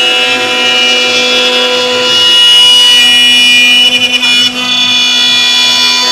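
CNC router running, its spindle giving a loud, steady, high whine, with a brief choppy stretch about four seconds in.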